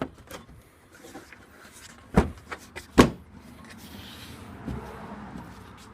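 Two sharp plastic knocks about a second apart, with lighter clicks and rustling around them, as a Ford F-150 headlight assembly is pressed onto its locating pins and plastic push tab.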